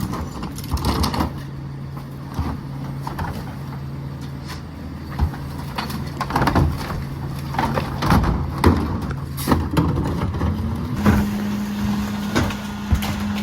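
Freightliner garbage truck with a McNeilus rear-loader body: the diesel engine runs steadily while trash goes into the hopper with repeated knocks and clatter. About eleven seconds in, the engine speeds up to a higher steady pitch, the throttle-up typical of a rear loader running its packer.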